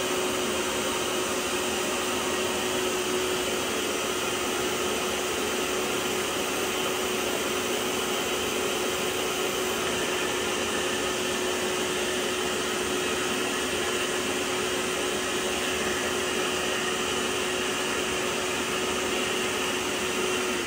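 Vax OnePWR cordless carpet cleaner's suction motor running steadily, a constant whine over rushing air as it extracts liquid from the carpet. At the very end the whine falls in pitch as the motor is switched off and winds down.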